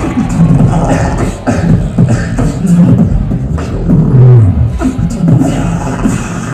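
Live amplified beatboxing by a tag team on microphones: a driving beat of sharp snare and hi-hat sounds over deep bass notes that glide downward.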